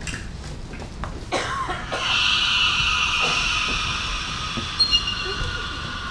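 A sustained, high-pitched shimmering sound cue swells in about two seconds in and holds, with a couple of brief chime-like rings near five seconds.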